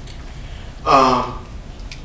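A man's voice: one short, drawn-out syllable about a second in, like a hesitation sound, over a steady low hum.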